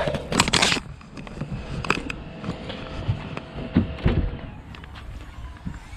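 Handling noise from pulling and moving the car's wiring and interior trim: a loud rustle in the first second, then scattered clicks and a couple of soft knocks.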